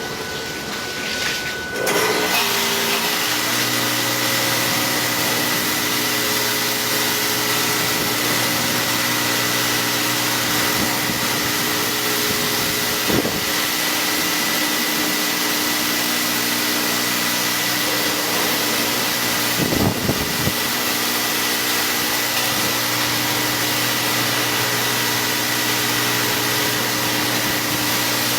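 A motor-driven machine running steadily, with a strong even hiss over a low hum; it rises to full running about two seconds in. A couple of brief knocks come through later.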